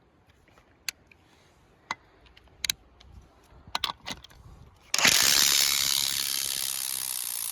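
A few light metal clicks, then a RIDGID 18V brushless subcompact half-inch impact wrench starts about five seconds in and hammers for nearly three seconds, loosening a trailer nut.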